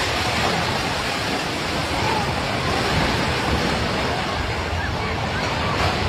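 Voices of a crowd of people over a loud, steady rushing roar, during a strong earthquake.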